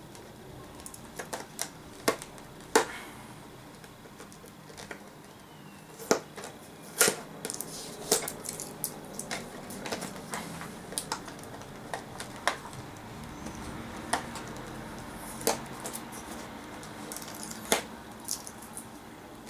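Scissors snipping at a stiff clear plastic packaging box, with irregular sharp clicks and crinkles of the plastic as it is cut and handled.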